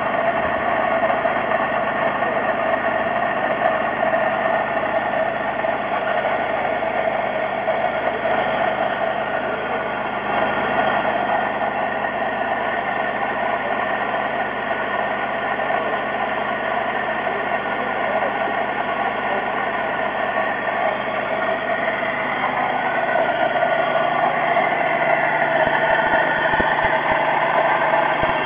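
A brand-new supercharged 3800 V6 in a Pontiac Grand Prix GTP, built with an aftermarket cam, ported heads, a ported blower and headers, running steadily on its first startup after the rebuild.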